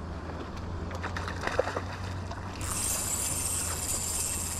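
Wind noise on the microphone, a steady low rumble with a few faint clicks, and a steady high hiss that comes in suddenly just past halfway.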